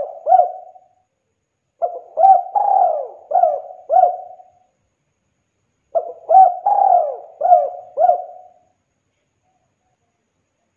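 Spotted dove cooing: two full phrases of four or five arching coo notes each, a second or so apart, after the last notes of a previous phrase at the start.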